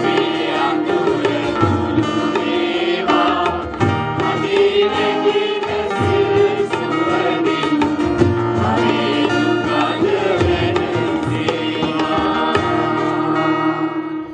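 Mixed choir singing a Sinhala Buddhist devotional song (bhakthi gee) through microphones and PA speakers, with instrumental and drum accompaniment.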